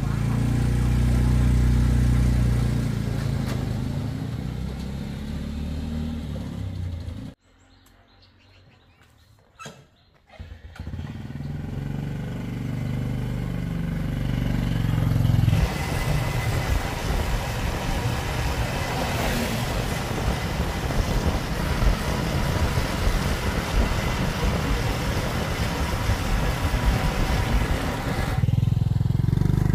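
Small motorcycle engines running: the three-wheeled motorcycle cargo truck's engine idling, cut by a near-silent break about seven seconds in, then a motorbike riding up. Through the second half the engine sound is rougher and mixed with rushing wind and road noise, as heard from a moving bike.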